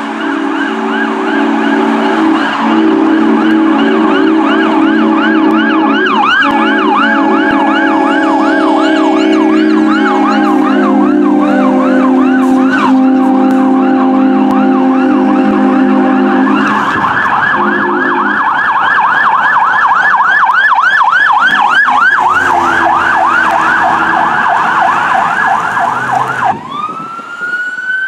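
Fire apparatus electronic siren in a fast yelp, rising and falling about three times a second, with long blasts of an air horn under it through the first two thirds. Near the end the siren changes to a slow rising wail.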